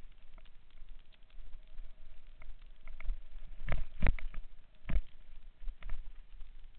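Mountain bike rolling down a rock-slab and gravel trail: tyres crunching on gravel and the bike rattling, with sharp knocks about four and five seconds in as it hits rocks, over a low rumble.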